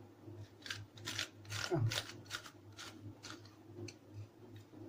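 Zucchini being hollowed out with a hand vegetable corer: about a dozen short scraping strokes at an irregular pace as the corer scrapes out the flesh, over a steady low hum.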